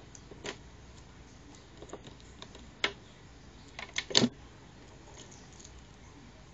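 Scattered small clicks and taps as a leather Aylmeri falconry anklet with metal eyelets and a swivel is handled and fastened. A quick cluster of louder clicks comes about four seconds in.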